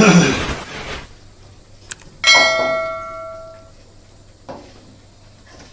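A short burst of scraping and handling noise, then a single sharp metallic clang about two seconds in that rings on for about a second and a half, metal striking metal during work on a washing machine's water inlet valve.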